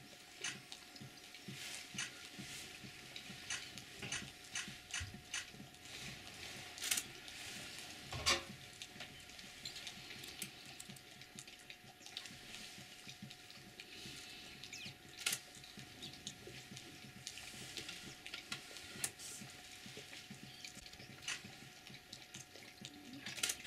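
Lions lapping water at a water hole: irregular, scattered wet clicks and splashy ticks, some louder than others, over a faint steady hum.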